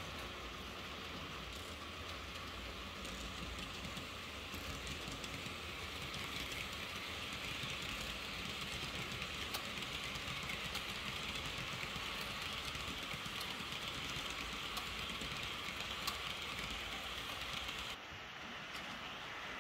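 Model train running on the layout's track: a steady rolling rattle of small wheels on rail with faint clicks. It grows louder over the first several seconds as the train comes nearer and drops off abruptly near the end.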